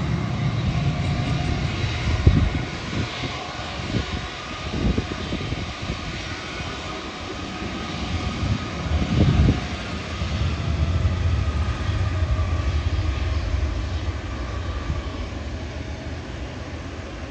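Jet airliner engines passing low overhead: a broad rumble with a faint whine, fading off over the last few seconds.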